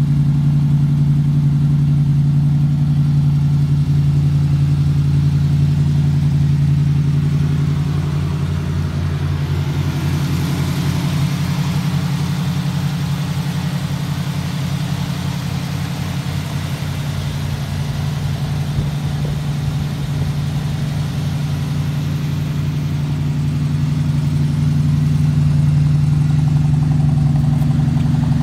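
1965 Ford Mustang's engine idling steadily at an even pitch. A higher hiss rises over it in the middle stretch, as heard from the front of the car, and the low exhaust note comes back louder near the end.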